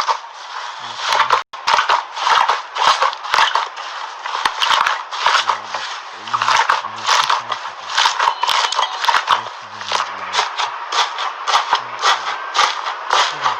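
Slime being handled and squeezed, giving a dense, irregular run of crackling, squishing noises.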